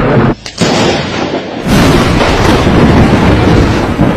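Loud, distorted thunder crashes and rumble from close lightning strikes, cutting out briefly about half a second in and coming back loud before two seconds in.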